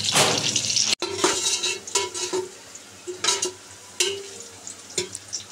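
Sliced onions frying in hot oil in a metal pot, stirred with a perforated metal skimmer: a dense sizzle for about the first second, then separate scrapes and clinks of the skimmer against the pot about once a second over a fainter sizzle. The onions are being fried toward golden brown.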